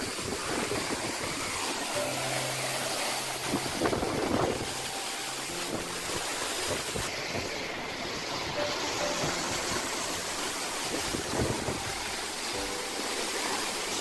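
Waterfall pouring onto rocks: a steady rush of falling and splashing water.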